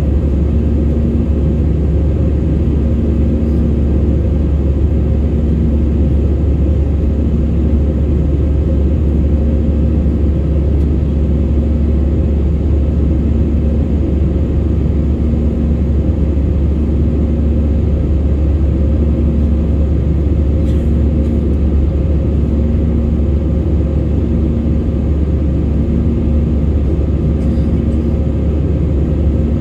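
Steady engine and airflow noise inside the passenger cabin of a jet airliner in its climb after take-off, with a low hum that pulses on and off at an even pace.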